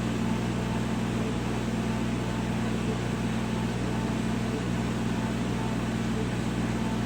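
Laser CNC engraver running an etching job on glass: a low steady machine hum from its fans and pumps, unchanging throughout.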